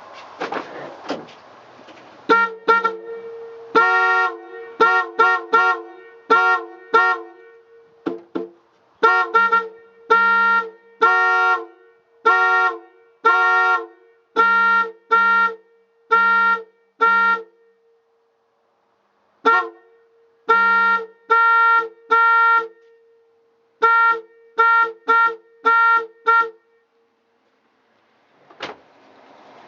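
Chevy Astro/GMC Safari van's electric horn sounding in many short, uneven honks, with a brief pause in the middle, as a newly installed replacement horn is tested. The horn is not working properly: it doesn't seem to be working real good.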